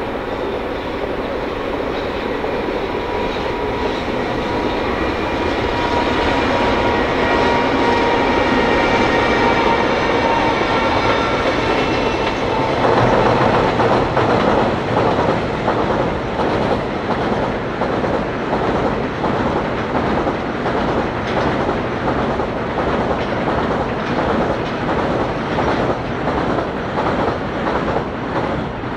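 Freight train of tank wagons behind a JR Freight EF210 electric locomotive passing. A whine of several steady high tones fills the first half; from about halfway a rapid, even clickety-clack of the wagon wheels over the rails takes over and continues.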